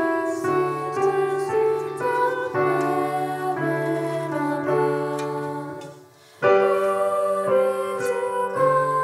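Slow, gentle keyboard music with held notes over a low sustained accompaniment. It breaks off for a moment about six seconds in, then picks up again.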